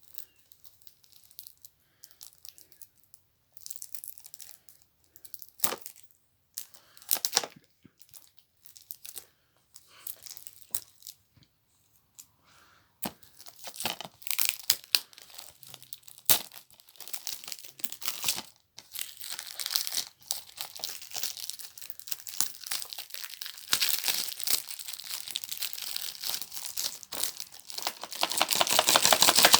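Plastic wrapping being torn and crinkled off a Blu-ray case. Scattered light clicks and rustles come first, then steady crinkling from about halfway through, loudest near the end.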